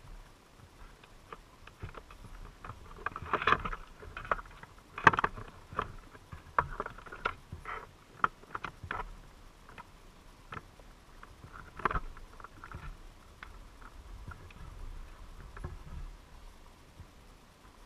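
Irregular sharp clicks and knocks recorded underwater through a camera housing inside a wire crab trap, over a low wash of water movement. The knocks cluster about three to nine seconds in, and one loud knock comes near twelve seconds.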